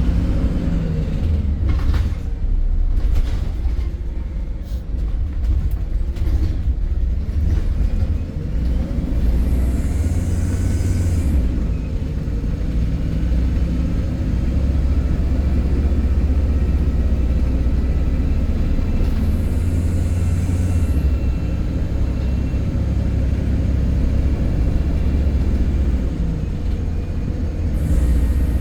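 MAN E300 single-deck bus running, heard from on board as a steady low engine and road drone with some rattling clicks early on. Short bursts of air hiss come three times, about ten seconds apart.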